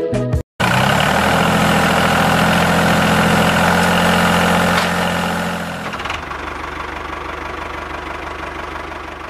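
Small electric motor of a homemade toy tractor running steadily, starting suddenly about half a second in, loud at first and dropping to a quieter run at about six seconds.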